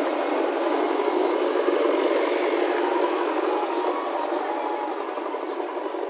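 JCB backhoe loader's diesel engine running steadily as the machine drives with a loaded front bucket. The sound is thin, with no deep rumble, and eases slightly toward the end.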